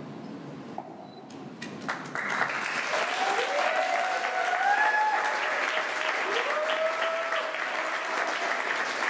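Audience applauding, the clapping swelling in about two seconds in, with a few whoops rising over it.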